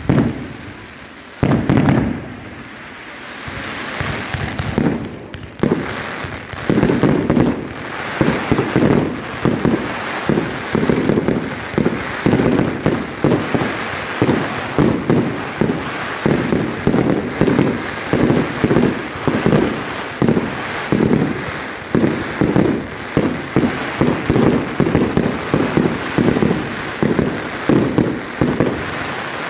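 Fireworks going off: a few separate bangs, then about six seconds in a dense barrage of bangs, several a second, over a steady crackling hiss.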